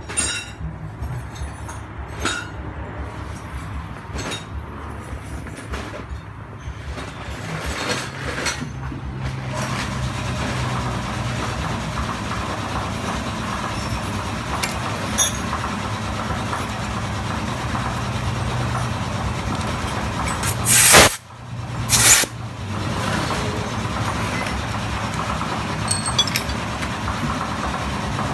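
Workshop background of a vehicle engine running steadily, with a few light metal clicks in the first several seconds and two short loud bursts of noise about 21 seconds in.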